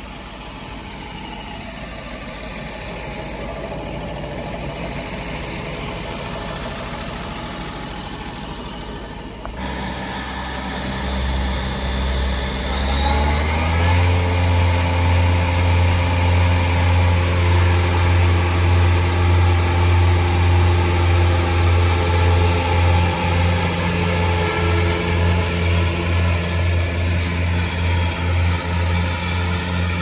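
Fendt 718 tractor running with its front and rear PTO-driven disc mowers. About ten seconds in the sound turns to a deeper hum. A few seconds later the pitch rises as the revs come up, then holds steady with a regular throb while mowing tall grass.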